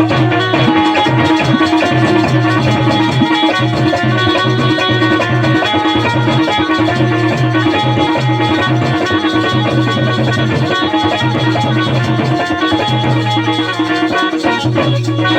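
Instrumental passage of Bundeli rai folk music: hand drums and rattles keep a fast, steady rhythm under a sustained melodic accompaniment and a repeating bass line.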